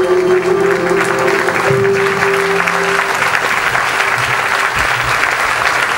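Concert audience applauding over the band's held notes; the music dies away about halfway through, leaving steady clapping.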